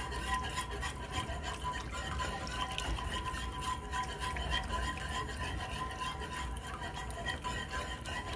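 Wire whisk stirring thin, milky sausage gravy in a nonstick skillet: a steady, continuous swishing through the liquid with light scraping against the pan. The constant stirring keeps the flour-thickened milk from scorching while it heats up and thickens.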